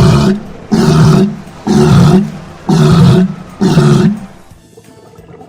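Seal barking: five loud calls in a row, about one a second, stopping about four seconds in, with faint background music under them.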